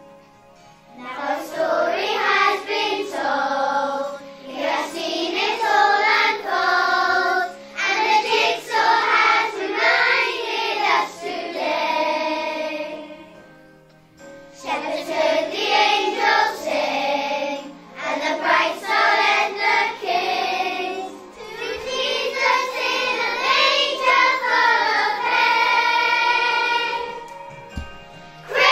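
Children's choir singing a song together to musical accompaniment, in sung phrases with a short break about halfway through.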